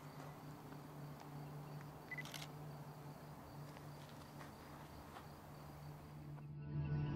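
Digital camera taking photos: a short beep about two seconds in, followed at once by the shutter click, with a few other faint clicks over a low steady hum.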